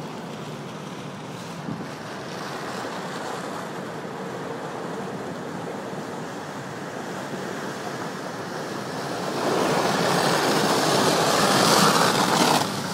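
Jeep Rubicon driving through a long muddy puddle: a steady rushing of water and engine noise that grows louder about nine and a half seconds in, then falls back near the end.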